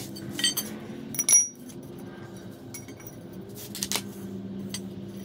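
Metal pieces clinking and knocking a few times, the loudest knock about a second in, over a steady low hum.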